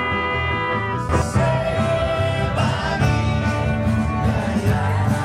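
Live acoustic band playing a country-style rock and roll tune on guitars and bass, with a steady bass pulse and some held notes.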